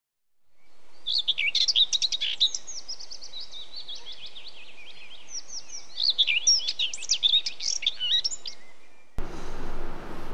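Morning birdsong: many small birds chirping and twittering, fading in after a second and fading out again toward the end. Near the end it cuts suddenly to music.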